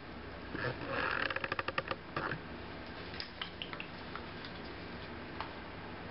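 Kittens eating baby food: wet licking and smacking sounds. About a second in comes a quick run of small clicks lasting about a second, followed by a few scattered clicks.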